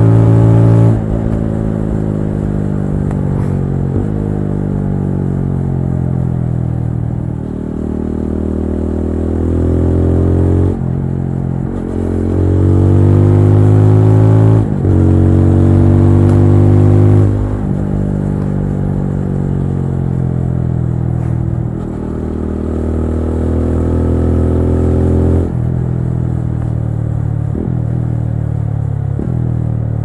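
TVS Apache RTR 200 4V's single-cylinder engine on the move, its pitch climbing under throttle and stepping down suddenly several times as it shifts or rolls off. Near the end it drops steadily with two short sharp blips.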